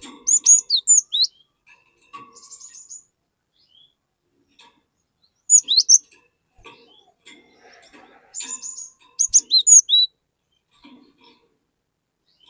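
A glatik batu (cinereous tit) singing in bursts of sharp, high chirps, with quiet gaps between the phrases.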